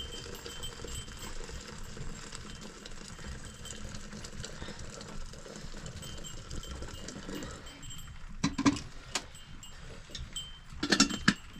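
Two short bursts of sharp metallic clanks, one about eight and a half seconds in and another near the end, over a steady background hiss.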